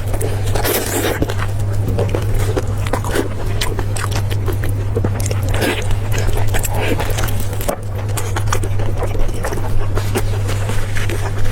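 A person biting and chewing spicy pork close to the microphone: a dense run of irregular clicks and smacks, over a steady low hum.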